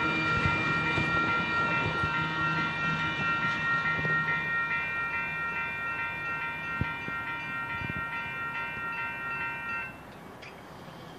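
Railroad grade-crossing warning bell ringing with rapid, evenly repeated strokes, and the rumble of a passing Amtrak Capitol Corridor train fading away beneath it. The bell stops abruptly about ten seconds in.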